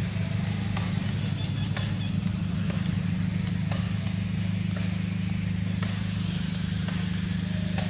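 A steady low engine hum that holds an even pitch throughout, with a few faint clicks and knocks over it.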